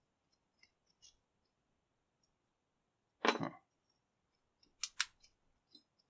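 Small brass padlock and its keys being handled: a few faint clicks, one louder clack about three seconds in, then two sharp metallic clinks in quick succession about a second and a half later.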